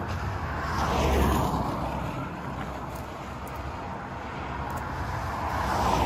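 A car passing on the road: its tyre and engine noise swells and falls in pitch about a second in. Another vehicle approaches near the end.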